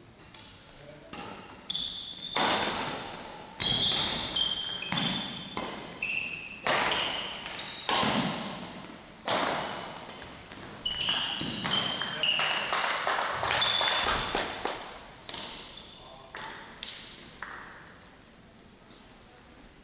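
A badminton rally: a quick run of sharp racket strikes on the shuttlecock that ring on in the large sports hall, with short high squeaks of court shoes on the floor between them. The rally starts about two seconds in and ends around seventeen seconds.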